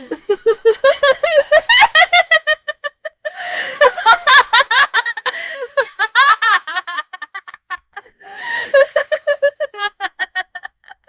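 A woman's high-pitched, unhinged laugh: fast runs of 'ha' pulses in three bouts, each of the later two starting with a breathy gasp, about three and eight seconds in.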